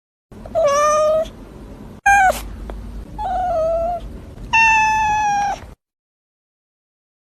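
A cat meowing four times: three drawn-out meows and one short one second, the last the longest and held at a steady pitch.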